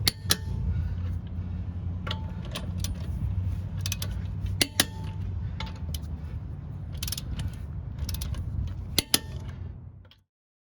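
Click-type torque wrench tightening wheel lug nuts to 150 foot-pounds: a dozen or so sharp metallic clicks and knocks at uneven intervals, some with a short ring, over a steady low hum. The sound cuts off suddenly near the end.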